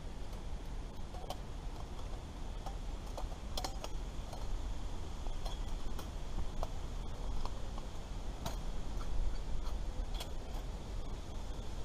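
Scattered, irregular small clicks and taps from hands working a small object, over a steady low rumble.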